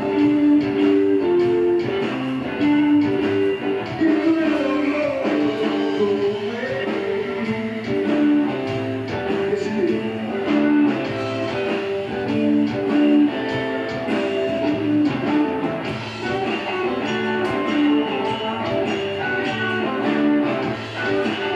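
Live band playing: electric guitars over bass and drums, at a steady beat.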